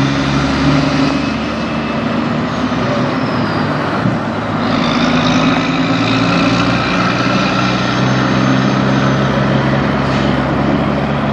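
Green Peterbilt semi tractor's diesel engine pulling a trailer away, running steadily under load. The engine note breaks briefly about four seconds in, a gear change, then picks up again.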